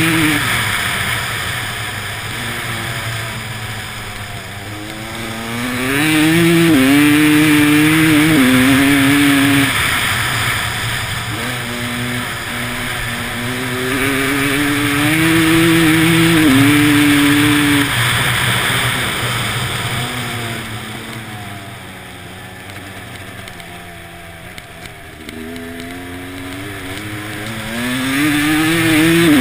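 Motorcycle engine accelerating hard through the gears. The pitch climbs and drops back at each shift, sags as the throttle eases off about two-thirds of the way through, then climbs again near the end, over a steady rushing hiss.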